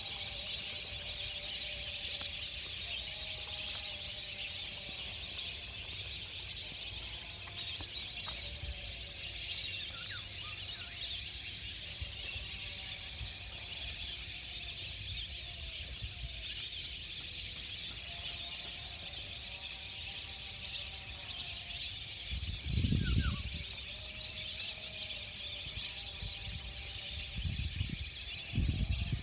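Flock of migratory waterbirds on a lake, calling now and then in short pitched notes over a steady high hiss. Two brief low buffets of wind on the microphone come about two-thirds of the way through and near the end.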